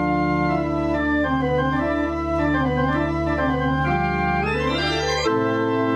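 Church pipe organ playing sustained full chords with moving upper notes over a held deep bass note. The bass note cuts off about five seconds in.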